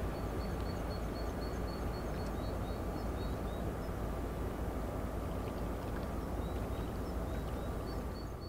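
Inland river ship passing, its diesel engine giving a steady low drone with a faint hum of engine tones. Short high bird chirps repeat several times a second over it.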